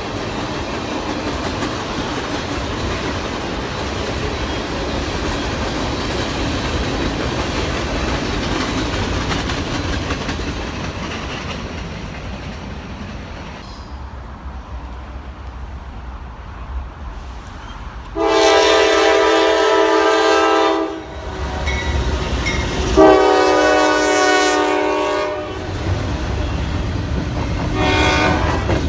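Train rolling past with a steady rumble and wheel clatter that fades away, then a locomotive's multi-chime air horn sounds two long blasts and a short one.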